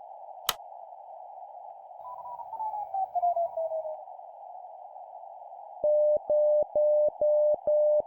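Morse code tone sending the digit zero as five long dashes at about 10 words per minute, over a steady narrow band of hiss. Before the dashes there is a single click about half a second in, and a whistle gliding down in pitch for about two seconds.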